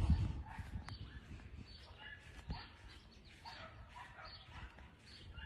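Dogs barking and yipping in many short, repeated calls, fairly faint, with a brief low bump right at the start.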